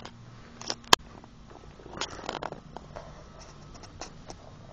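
Rustling and light knocks from a handheld phone being carried while walking, with one sharp click about a second in.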